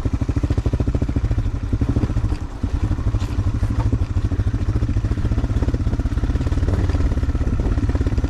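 Motorcycle engine running steadily with fast, even pulsing. The sound dips briefly about two and a half seconds in.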